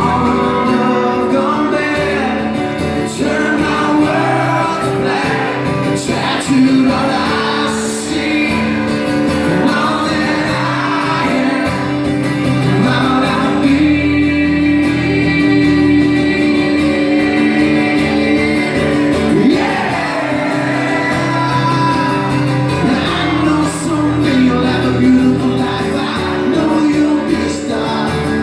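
Live rock performance: a singer's long held and wordless vocal lines over guitar accompaniment.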